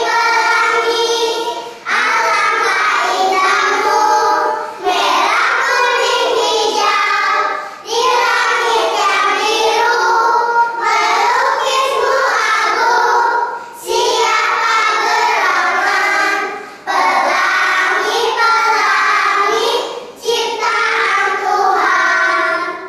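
Kindergarten children's choir singing, in phrases of about two to three seconds with short breaks between them.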